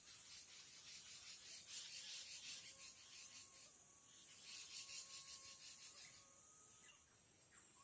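Tropical forest insects calling: a steady high-pitched whine, joined by two long stretches of rapid, rasping pulsed buzzing, the first about three seconds long and the second shorter, starting about four and a half seconds in. A faint steady whistle sits lower down through the middle.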